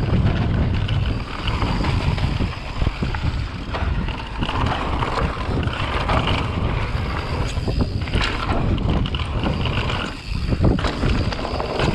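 Mountain bike running fast downhill on a dirt and rocky trail: wind buffeting the microphone and tyres rolling over dirt and loose stones, with scattered knocks and rattles from the bike over bumps.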